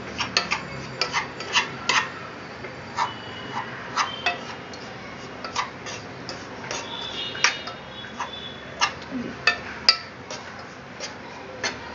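Spoon clinking, knocking and scraping against a pan in irregular strokes while a roasted wheat flour and ghee-solids mixture is stirred, with a brief ringing after some knocks.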